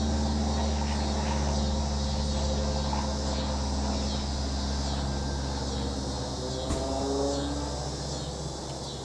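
Cessna 172 light aircraft droning overhead, its piston engine and propeller giving a steady low hum that slowly fades as it moves off. Insects chirr high above it, and there is a single sharp click near the end.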